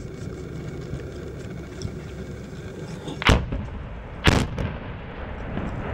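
Two sharp explosion bangs about a second apart, a little over halfway through, over a steady low rumble. They come from detonations in the smoke of a MICLIC mine-clearing line charge blast, heard from a distance.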